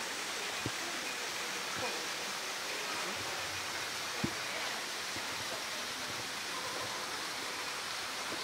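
Steady rushing hiss of running water, with two faint sharp knocks, one about a second in and one about four seconds in.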